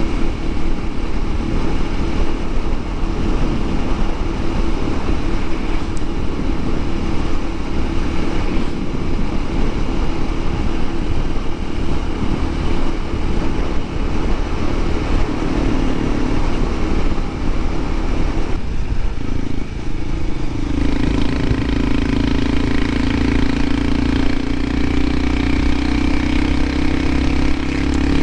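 Honda CT125 Hunter Cub's air-cooled single-cylinder engine running steadily under way, with wind noise. About two-thirds of the way through, the engine note changes, then settles a little lower and steadier.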